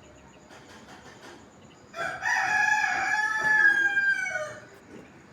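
Rooster crowing once: a single long call of about two and a half seconds that drops in pitch as it ends.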